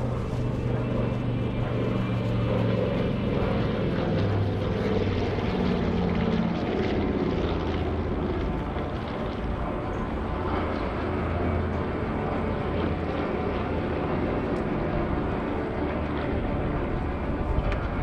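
Mitsubishi A6M2 Zero's radial engine and propeller running through an aerobatic pass, a continuous drone whose pitch drops about four seconds in and then holds steady.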